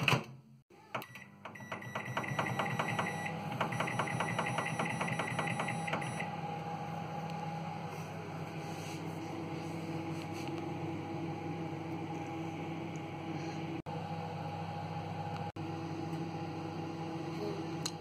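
A click, then a microwave oven starts up and runs with a steady hum. A fast ticking sounds over it for the first few seconds.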